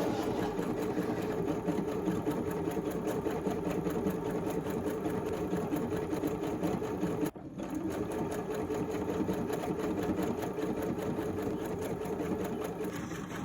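Janome J-885 sewing machine running and stitching at a steady rapid rate, stopping briefly about seven seconds in and then starting again.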